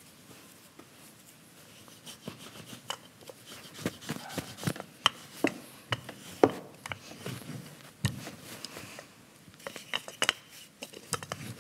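Wooden rolling pin rolling out dough on a floured wooden table, with a string of sharp knocks and clatters starting about two seconds in.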